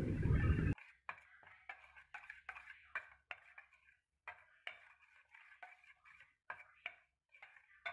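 Spoon stirring thick curd into a ground leaf paste in a stainless steel bowl: soft, irregular scrapes and clicks of the spoon against the steel, about two a second. A steady background hiss cuts off abruptly under a second in.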